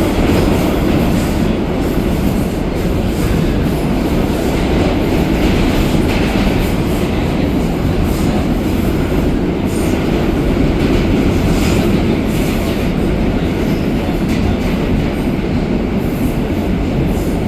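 R160A subway car running between stations, heard from inside the car: a steady rumble of wheels on the rails, with scattered light clicks over rail joints.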